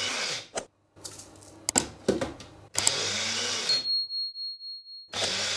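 Small electric grinder (a press-to-run mini mixer) run in short bursts, grinding warm toasted sesame seeds and a spoonful of oil into tahini paste. It stops about half a second in, runs again for about a second near the middle, and starts once more near the end.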